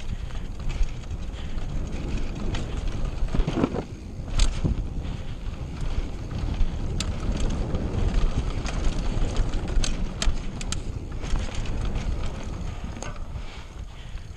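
Wind noise on the camera microphone over a mountain bike riding fast down a dirt trail: tyres rolling on dirt under a steady rumble, with scattered sharp clicks and knocks as the bike rattles over bumps.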